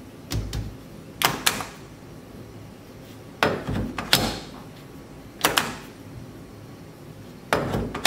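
Sharp clicks and knocks from a newly fitted steering wheel and its quick-release hub being gripped and worked by hand in a car cabin, coming in pairs every second or two.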